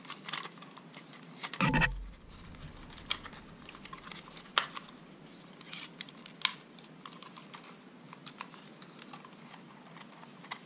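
Light plastic clicks and taps as the folding arms of a CSJ S162 mini drone are swung open and the drone is handled, with one heavier knock about two seconds in.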